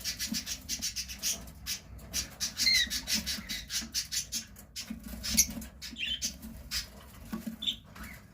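Ring-necked parakeets chattering: a rapid run of short, harsh, high calls, several a second, with a few brief chirping notes.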